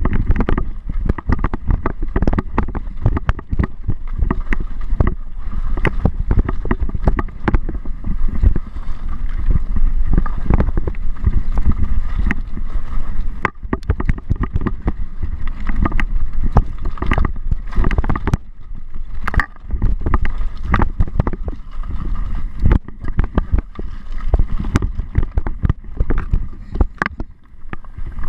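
Wind buffeting the microphone over a mountain bike's rattling and knocking as it rides fast over rough, rocky ground, with many irregular knocks throughout.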